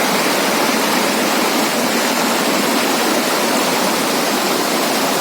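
Waterfall: water falling and splashing in a steady, even rush with little bass.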